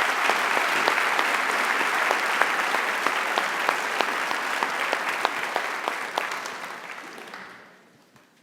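Audience applauding in a large hall, a dense steady clapping that fades away over the last couple of seconds.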